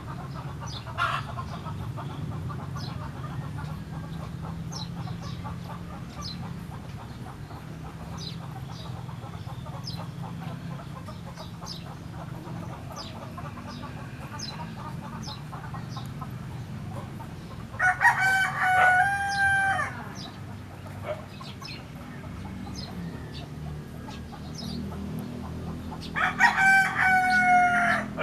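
A rooster crows twice, each crow a long pitched call of about two seconds, the first about two-thirds of the way in and the second near the end. Between the crows there are faint short clicks over a steady low background rumble.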